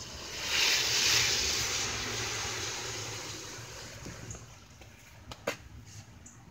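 A vehicle passing on a rain-wet road: a tyre hiss that swells quickly, then slowly fades away. A single sharp click near the end.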